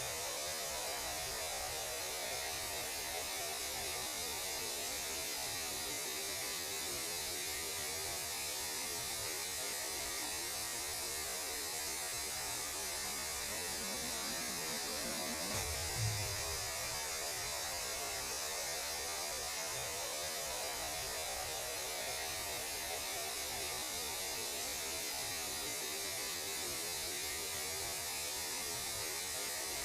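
Space radio noise played as sound: a steady hiss and static over a low hum, with a brief low thump about 16 seconds in.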